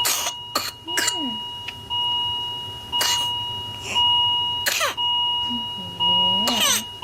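An infant coughing and gasping in short fits, the kind of episode whooping cough brings on in babies, with a long rising cry near the end. Over it an electronic alarm chimes about once a second, each tone fading before the next.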